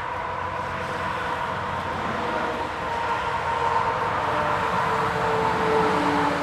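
Motor vehicle running past, a steady engine and road noise that grows louder toward the end, with a hum that drops in pitch as it goes by.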